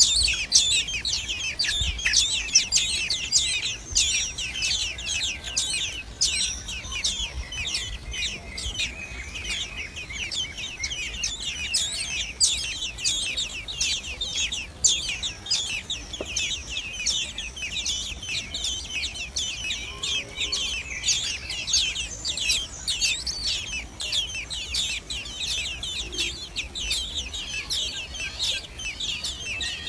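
Common blackbird nestlings begging for food: a dense, continuous chorus of rapid high-pitched cheeps, a little louder in the first few seconds.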